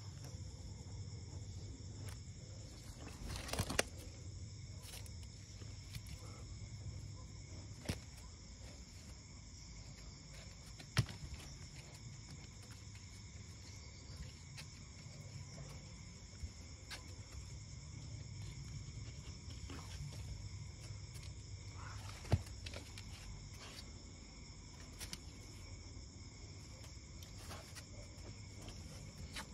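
Crickets chirring steadily in a continuous high-pitched chorus. A few sharp knocks cut through it, about 4, 8, 11 and 22 seconds in.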